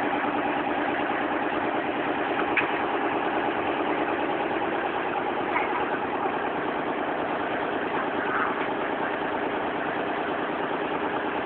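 An engine running steadily at an even speed, with its pitch holding constant.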